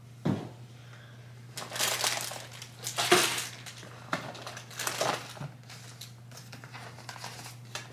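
Plastic packaging and an insulated bag rustling and crinkling in several irregular bursts as food is handled and unpacked, with a soft thump just after the start.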